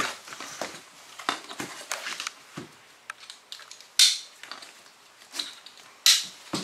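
Nylon stretcher straps being pulled and rustled, with scattered small clicks and two loud, sharp plastic snaps about two seconds apart, the sound of side-release buckles fastening.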